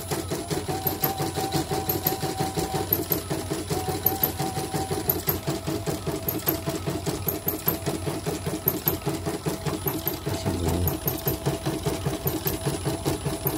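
CNY E900 portable embroidery machine stitching with its covers off: a rapid, even mechanical clatter with a whine underneath. The technician traces the noise to the presser foot mechanism.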